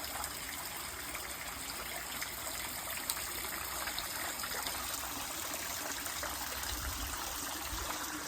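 A creek's water trickling and flowing steadily over the streambed.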